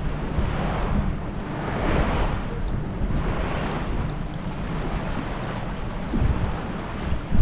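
Wind buffeting the microphone over water splashing against a boat's hull, with a steady low rumble underneath; the rush swells and fades about once a second.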